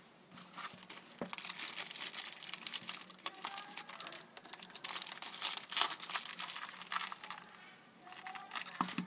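Thin clear plastic bag crinkling as a small remote control is handled in and out of it, in dense crackling bursts with a short pause about eight seconds in.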